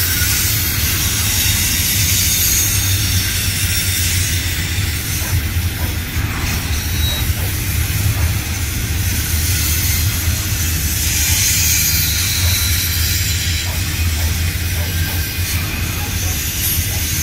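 Double-stack intermodal freight cars rolling past: a steady, loud low rumble of steel wheels on the rails with a hiss over it.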